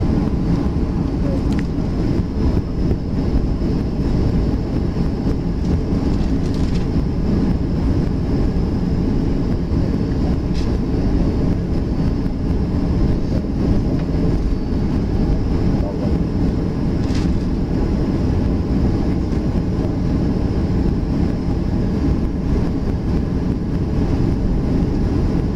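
Steady low rumble inside the cabin of a Boeing 737 airliner as it taxis on the ground, with a few faint clicks.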